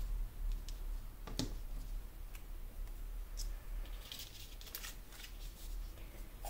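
Light taps and paper handling on a planner page, then a crackling run of washi tape being pulled off its roll about four seconds in, over a low steady hum.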